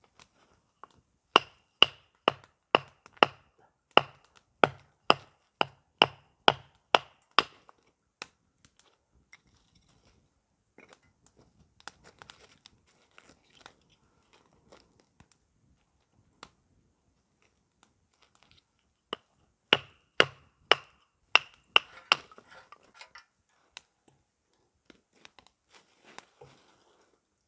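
Batoning firewood: a wooden baton knocking on the spine of a knife to split small sticks, about a dozen sharp knocks at roughly two a second, then wood being handled, then a second shorter run of knocks.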